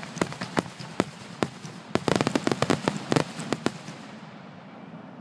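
Fireworks finale barrage: a rapid run of sharp, overlapping bangs that stops about four seconds in, leaving a fading rumble.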